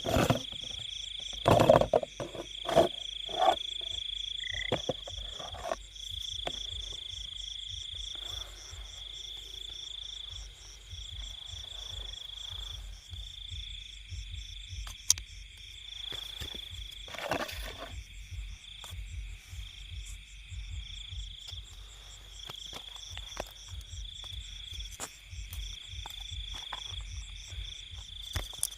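Night chorus of insects: a steady high trill, broken every few seconds, with a faster pulsing chirp above it. Over it come a few louder, lower frog croaks in the first six seconds and again around seventeen seconds.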